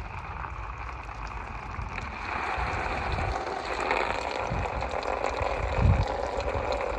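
Water being poured at a new through-hull fitting to leak-test it, a steady rushing splash that grows louder about two seconds in. Low rumbling thumps run underneath.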